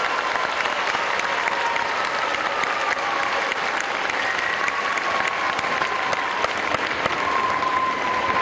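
Audience applauding steadily, dense clapping with a few faint thin whistle-like tones running over it.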